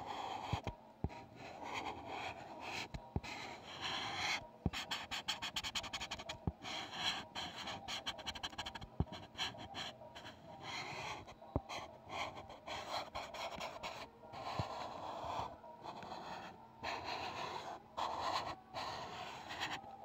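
Pencil lead scratching across textured paper in short drawing strokes, with brief pauses between lines.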